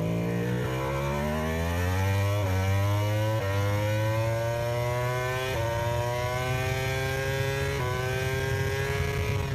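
Racing motorcycle engine accelerating hard through the gears: the pitch climbs steadily, then drops sharply with each of four upshifts.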